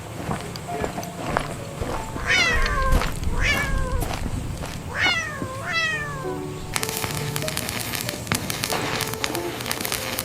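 AI-generated cat meows: four calls between about 2 and 6 seconds in, each falling in pitch. From about 7 seconds in, a steady hiss with rapid clicks takes over.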